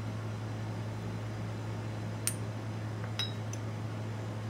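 A steady low hum with two light clinks, about two and three seconds in, of a spoon against a small ceramic dish as grated garlic is added to the mixing bowl.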